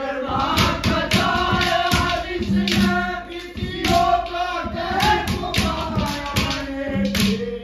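A man singing a Haryanvi ragini in a loud, open-throated voice, with long held and sliding notes, over a steady beat of sharp percussive strikes.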